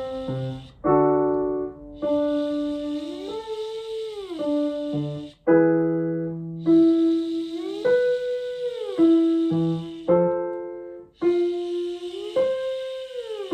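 A singer voicing a buzzy 'zh' SOVT sound and sliding up a fifth and back down (1-5-1), three times, with piano chords sounding the starting pitch for each slide. Each slide starts a little higher, moving up the scale.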